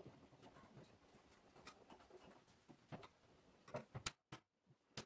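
Near silence: faint room tone, with a few sharp faint clicks toward the end.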